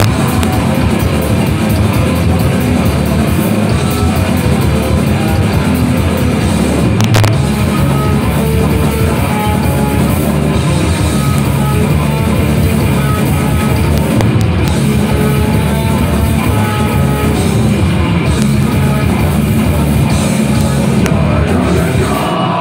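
Live crust punk band playing loud: distorted electric guitars and bass, a drum kit and vocals into a microphone, all at full volume, with the song stopping at the very end.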